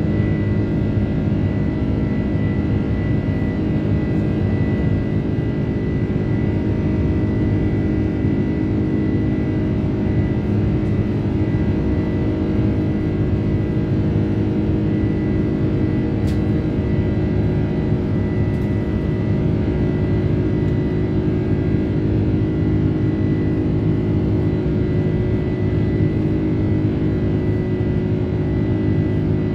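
Boeing 747-400 jet engines heard inside the upper-deck cabin: a loud, steady roar with several held humming tones and a thin high whine. The noise holds level throughout.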